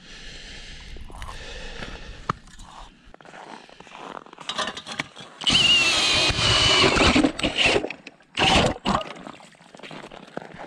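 Cordless drill driving an ice auger, boring into lake ice: a loud whirring grind with a steady whine that starts about halfway through and runs for about two seconds, then a short second burst. Quieter scraping and handling noise comes before it.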